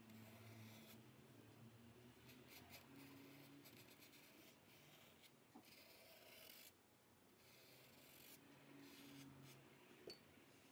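Faint brushing and scratching of a fine paintbrush drawn across a painted board, in several separate strokes.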